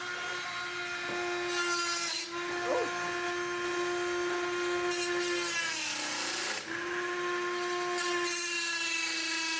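High-speed handheld rotary tool running with a steady whine while cutting a hole in a PC case panel, with stretches of gritty cutting hiss each time the bit bites. About six seconds in the motor sags briefly and then comes back up to speed.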